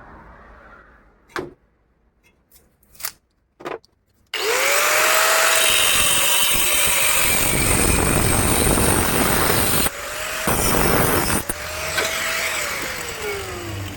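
A few light metallic clicks, then an electric power tool starts about four seconds in, its motor whine rising as it spins up, with a loud grinding hiss. It drops out briefly near ten seconds, starts again, and its whine falls as it winds down near the end.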